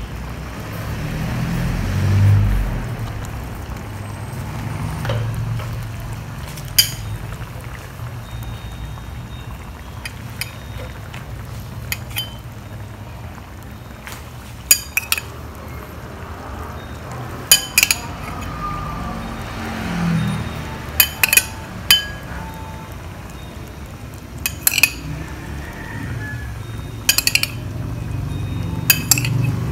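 A metal spoon clinking against the stainless steel pot and the bowl as peeled quail eggs are spooned into the sauce. There are sharp single and double clinks every few seconds, over a steady low hum.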